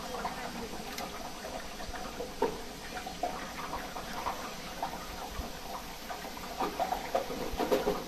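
Chin chin dough pieces deep-frying in hot oil in a round stainless-steel fryer: a steady bubbling sizzle full of small crackles. The crackling grows louder and busier near the end.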